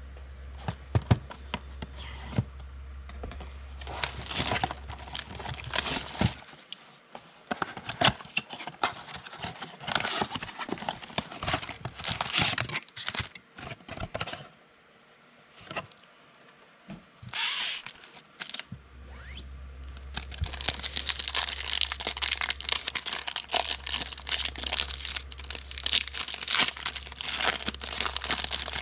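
Trading-card pack wrappers being torn open and crinkled, in irregular crackling rips, growing into denser, steadier crinkling over the last third.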